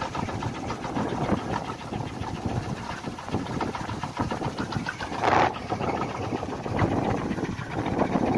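Kolecer, a Sundanese wooden wind propeller, spinning fast in the wind with a steady rapid buzzing whir that swells louder about five seconds in.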